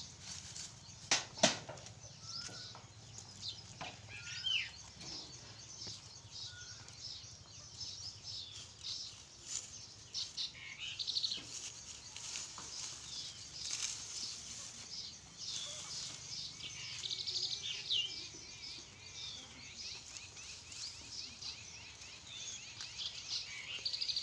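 Dry fodder stalks and leaves rustling and crackling as goat kids tug at them, with small birds chirping busily throughout. A couple of sharp knocks about a second in.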